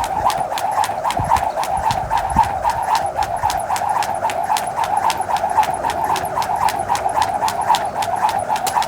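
Jump rope turning steadily: a whirring swish on each turn and a sharp tap as it strikes the ground, about three to four times a second.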